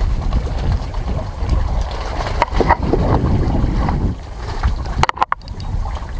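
Wind buffeting the microphone: a steady low rumbling, with a few light knocks and clicks about two and a half seconds in and a brief dropout near the end.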